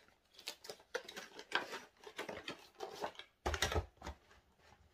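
Cardboard product box being opened and its contents handled: irregular rustling, scraping and light knocks of packaging, with a louder thump about three and a half seconds in.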